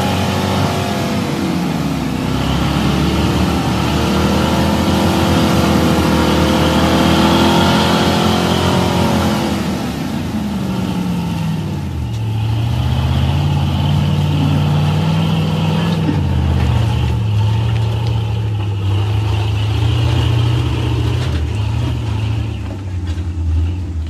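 Chevrolet squarebody pickup's engine revving hard as the truck spins its tires climbing wet, slick granite rock. The revs ease off about ten seconds in, then rise and fall at a lower pitch.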